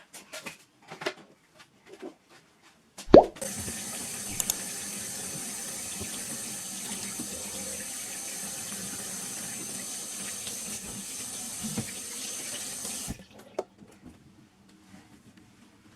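A water tap turned on with a clack about three seconds in, running steadily into a sink for about ten seconds, then shut off abruptly, with small knocks of dishes or fittings around it.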